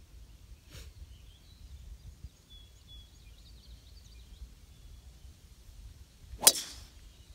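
Golf driver striking a teed ball: one sharp crack about six and a half seconds in, by far the loudest sound.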